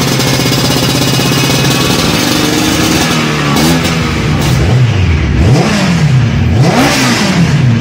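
Vespa P150S two-stroke scooter engine running through an aftermarket steel muffler: a steady idle, then from about halfway it is revved in quick throttle blips, the pitch rising and falling about once a second.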